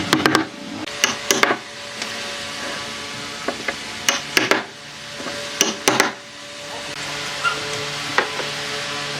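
Wood being knocked or struck with a hand tool in short clusters of two or three sharp knocks, with a few seconds between the clusters, over a steady low hum.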